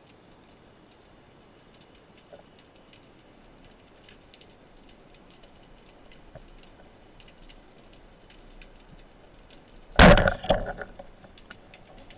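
Band-powered speargun fired underwater: one sharp, loud crack about ten seconds in, followed by a few fainter clicks for under a second. Before it there are only faint scattered ticks.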